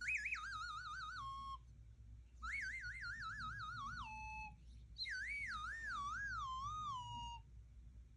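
Three warbling whistle-like tones from a 'sounds dogs like' video playing through an iPad speaker. Each wavers quickly up and down in pitch and then drops lower before stopping.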